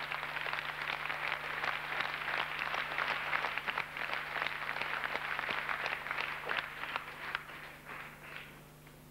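Audience applauding, thinning out and dying away over the last couple of seconds.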